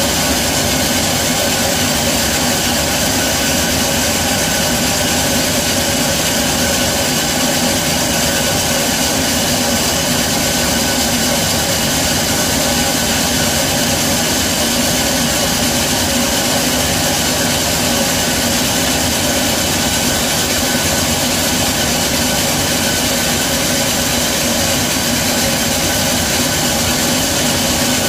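Sawmill band saw headrig running with a steady, even machine drone and whine that does not change, the log on its carriage not yet in the blade.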